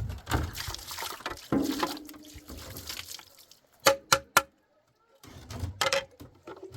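Water pouring and sloshing, with three short sharp knocks about four seconds in.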